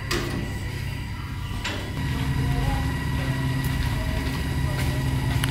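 Motorcycle engine running steadily as it approaches, getting louder about two seconds in. Two light clicks come in the first two seconds.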